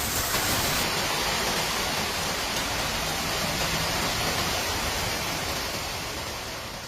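Steady rushing noise of water, with no distinct splashes or impacts. The sound shifts slightly about a second in and fades out near the end.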